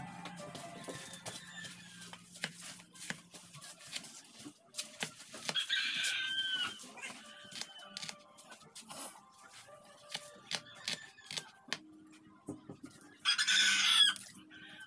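Kitchen knife chopping onion on a cutting board, a string of quick knocks. A rooster crows, once briefly in the middle and loudest in a short burst near the end.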